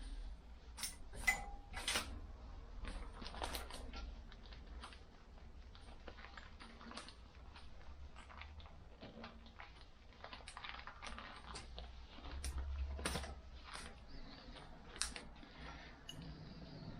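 Scattered faint clicks and ticks of hands working at small plastic and metal parts, here the motorcycle's brake-switch wiring connector being worked loose.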